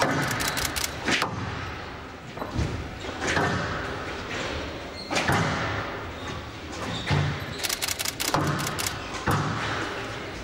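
Squash rally in a large hall: the ball cracked off rackets and thudding against the court walls every second or two, with quick clusters of sharper clicks, echoing off the hall.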